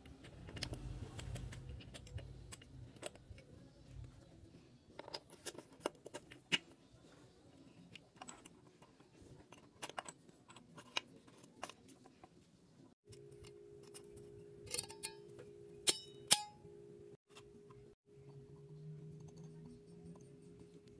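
Scattered light metallic clicks and taps as gearbox parts (shift drum, gears, shift-fork hardware) are handled and fitted in a Suzuki DR650's open crankcase. A steady low hum comes in about halfway through.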